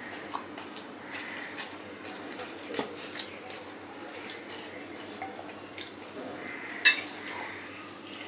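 A stainless steel spoon clinking against a steel plate and bowl as curry is served onto rice. A few scattered clinks, the sharpest about seven seconds in.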